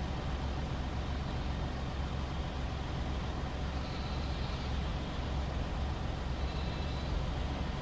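Steady rushing of a fast, swollen, muddy river in spate, with a deep rumble underneath.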